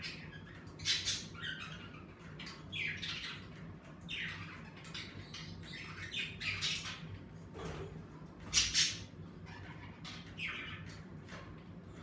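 Several budgerigars calling in short, harsh squawks and chirps every second or two, the loudest about a second in and again about two thirds through.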